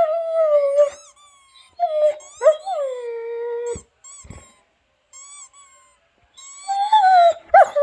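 A dog whining in several long, drawn-out pitched notes, some gliding up or down, while short high-pitched squeaks sound above them.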